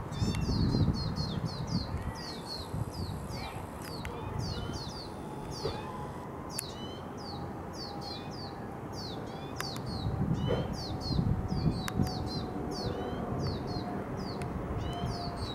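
Lesser goldfinch fledglings begging for food: a rapid, unbroken series of short, high, downward-slurred calls, several a second. A low rumble rises underneath near the start and again past the middle.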